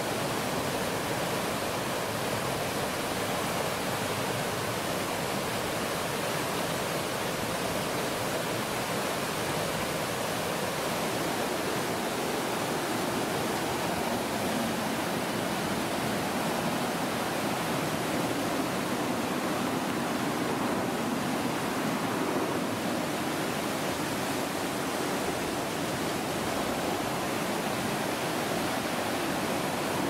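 Whitewater rapids of a mountain stream rushing steadily over rocks, the stream running high after days of rain.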